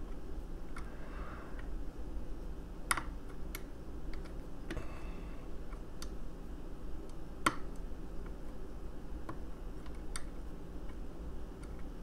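Sparse light clicks and faint scraping of a lock pick working the pin stack of a Tianda padlock held under tension by a tension wrench, the sharpest clicks about three seconds in and again past seven seconds.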